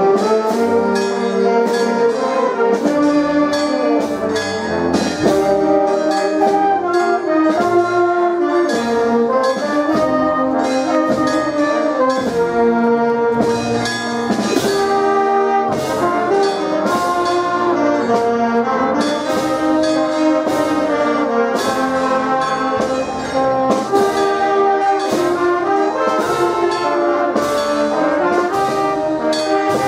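Brass band playing a march: held brass chords over a steady drum beat.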